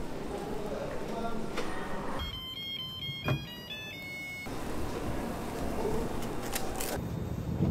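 Food-stall kitchen noise: a steady background hum with clicks and clatter from metal waffle irons being handled, the sharpest click about three seconds in. Faint music with a stepping melody plays in the background.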